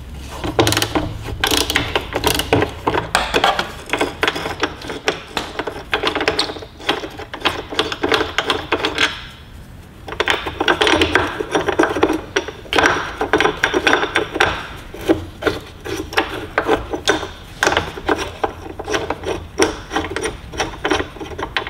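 Ratchet wrench clicking in long, rapid runs as it backs out bolts, with a short pause about nine seconds in.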